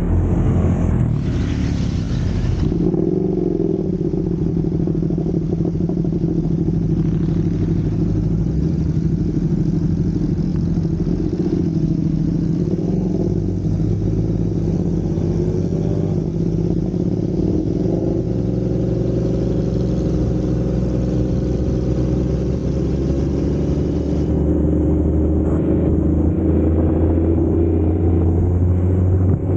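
Honda CBR1000RR's inline-four engine running at steady cruising revs while riding, its note shifting a little in pitch as the throttle changes, over a faint rush of road and wind noise. A brief louder rush comes about a second in.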